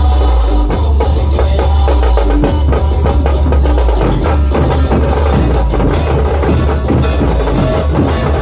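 Loud music played through a large sound-system rig of bass and top speakers, with a heavy sustained bass line under a fast, dense drum beat.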